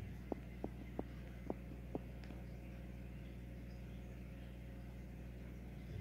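Steady low hum of a running aquarium's equipment, with about five short soft clicks over the first two seconds.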